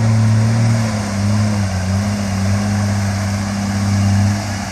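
Off-road vehicle's engine running at a steady, moderate speed, its pitch easing slightly a couple of times.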